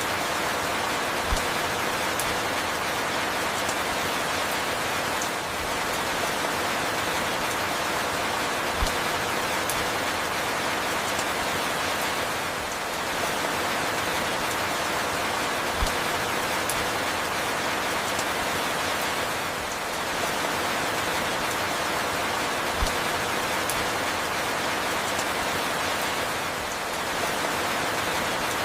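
Steady, dense rainfall, an even hiss of falling drops. A short, soft low thump recurs about every seven seconds.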